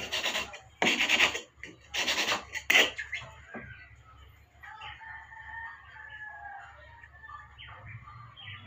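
A knife blade stroked four times across a sharpening stone, rasping, about one stroke a second. Then a faint, drawn-out, wavering rooster crow in the background.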